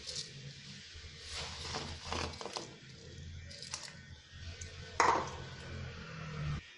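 Washed rice being tipped from a steel bowl into a pot of boiling milk: soft scattered rustling and splashing, with a sharper knock about five seconds in, over a low steady hum.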